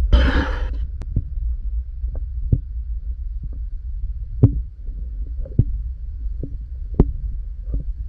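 Underwater sound through a diver's camera housing: a steady low rumble with scattered sharp clicks and knocks, and a short hissing rush in the first second.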